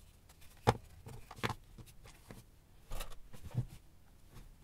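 A few faint clicks and scrapes of a small screwdriver and the oscilloscope's plastic case being handled while the case screws are taken out.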